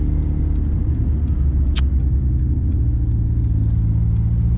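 Steady low exhaust drone of a Honda cruising at highway speed, heard inside the cabin, with road noise underneath. The car runs without a catalytic converter, on a sport exhaust with a large mid-pipe resonator. A brief sharp click sounds about halfway through.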